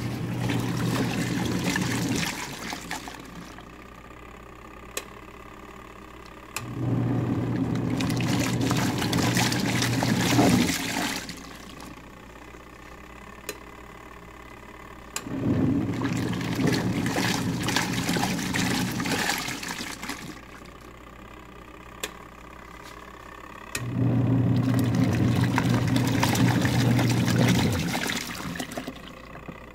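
Twin tub washing machine's wash tub running: the motor hums and the water churns for about four seconds, stops for about four seconds, then starts again, four times over, as the wash cycle runs and pauses by turns.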